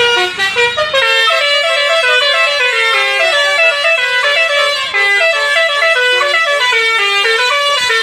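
Tour bus's basuri musical horn playing a fast melody of quick stepped notes without a break: the 'telolet' horn.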